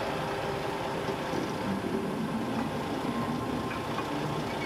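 Lima model diesel shunter running steadily along the track, its electric motor and gears whirring as it pulls a loaded car transporter wagon.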